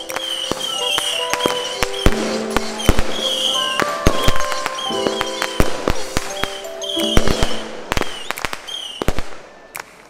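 Fireworks going off in a string of sharp bangs and crackles over background music, the music fading out near the end.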